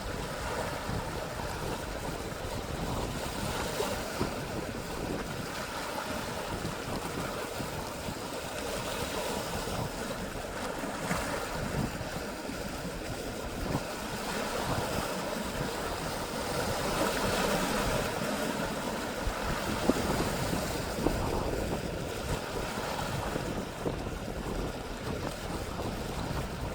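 Sea waves washing steadily, with wind buffeting the microphone; the wash grows louder for a few seconds past the middle.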